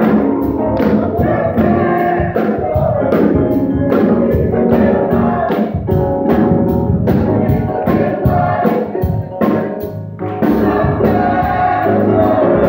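Gospel choir singing with piano and keyboard accompaniment, hands clapping steadily on the beat, about two claps a second.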